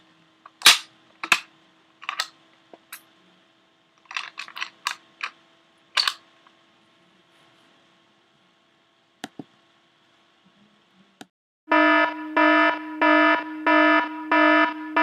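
Scattered sharp clicks and taps over a faint steady hum. About eleven seconds in, a loud, buzzy fire alarm horn tone starts, pulsing evenly about one and a half times a second.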